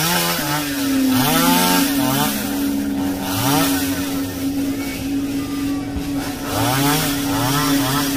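Two-stroke chainsaw revved up and back down again and again, a rising-and-falling whine every second or two, over a steady engine tone that sets in about half a second in.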